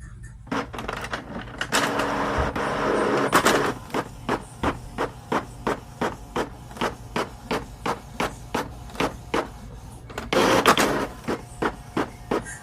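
Steady rhythmic clacking, about three sharp strikes a second, starting about half a second in. A louder noisy rush swells over it twice, near the start and again about ten seconds in.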